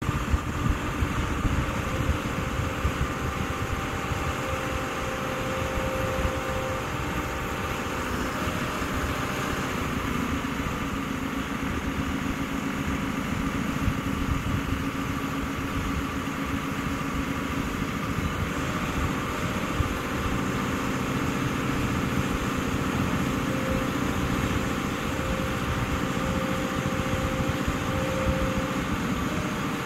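Caterpillar 330F L tracked excavator's diesel engine running steadily while the boom and bucket are worked. A steady whine rides on top and shifts pitch a few times.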